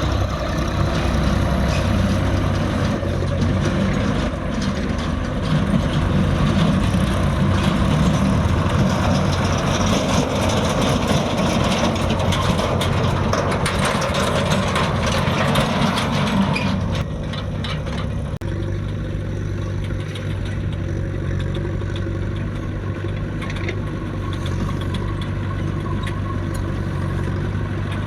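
Diesel engine of a JCB 3DX backhoe loader working, with scattered clanks. About two-thirds of the way through it drops to a quieter, steady run.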